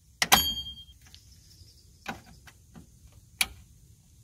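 Metal clicks of a brake spring tool working the return springs off the anchor pin of a rear drum brake. One sharp, ringing metallic clank comes about a third of a second in, then two lighter clicks.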